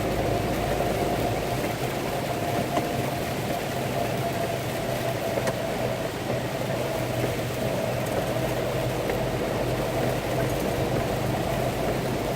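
Vehicle engine idling steadily, heard from inside the cab of a truck stopped in traffic.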